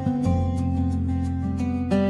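Background music with plucked acoustic guitar notes.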